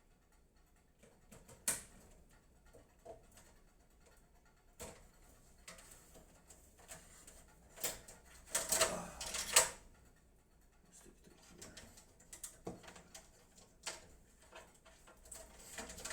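Scattered clicks, taps and knocks of hardware being handled while drives are mounted in a PC case, with a busier clatter of several knocks about eight to ten seconds in.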